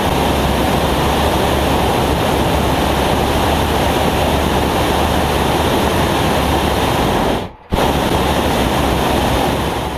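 Hot-air balloon propane burner firing: a loud, steady rushing blast that cuts out for an instant about seven and a half seconds in, then fires again.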